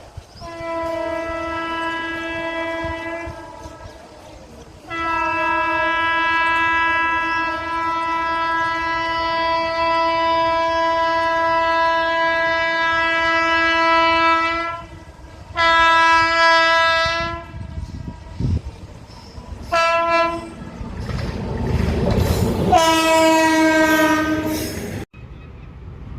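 Indian Railways locomotive horn sounding five blasts on one steady pitch: a first of about three seconds, a long one of nearly ten seconds, then a shorter one, a very brief toot and a last of about two seconds. A rumble of the train running on the track rises between the last two blasts.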